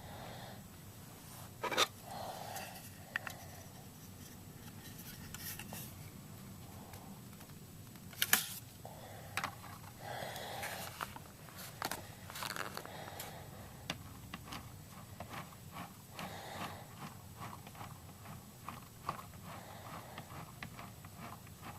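Handling noises: scattered small clicks, scrapes and rustles, with two sharper clicks about two and eight seconds in.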